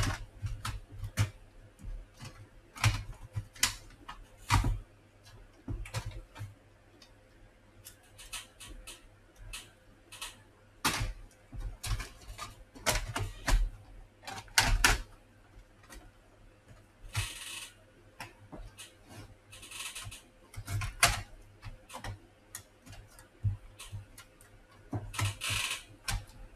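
Plastic clicks, taps and knocks from an Acer 4739 laptop's casing being handled and fitted back together, with a few short scraping rubs in the second half.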